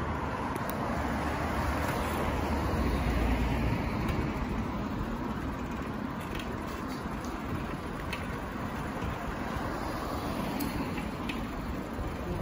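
Light city street traffic heard from a moving bicycle: a steady hiss of traffic with a low rumble that swells about two to four seconds in, and a few faint ticks later on.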